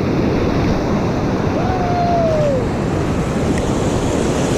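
Ocean surf and wind rushing on the microphone, a steady loud noise. About halfway through, a single brief high tone sounds for about a second and dips in pitch at its end.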